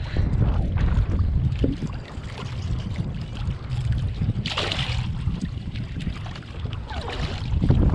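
Wind buffeting the microphone and water lapping against a kayak, with splashes about halfway through and again near the end as a hooked snapper thrashes at the surface beside the hull.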